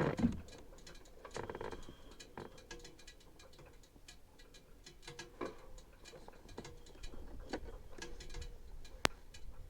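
Faint, irregular ticking and clicking, with one sharp click near the end.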